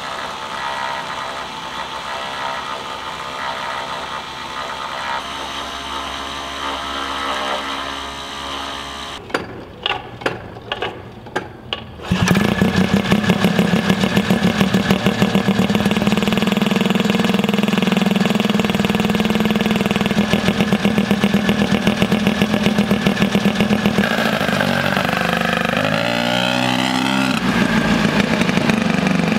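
Turbocharged rotary engine of an ATV starting suddenly about twelve seconds in. It runs with a steady, fast-pulsing idle, then revs up and down near the end as the quad pulls away.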